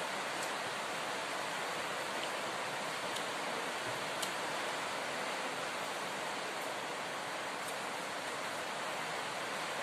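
A steady, even hiss like rushing water or rain, with a few faint clicks over it.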